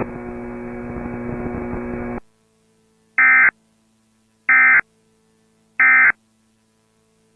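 A hiss with a low hum cuts off about two seconds in. Then come the three short, identical digital end-of-message data bursts of an Emergency Alert System (EAS) broadcast, evenly spaced about 1.3 seconds apart, over a faint hum.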